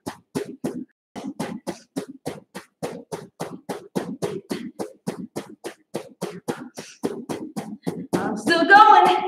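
Rapid alternating punches into a pillow, about five a second, each a short sharp hit with a puff of breath. Near the end comes a louder strained vocal sound of effort, lasting about a second.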